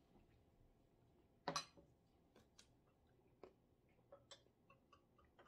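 Quiet room with faint, scattered clicks and crunches of hard candy being bitten and chewed, with one louder crack about a second and a half in.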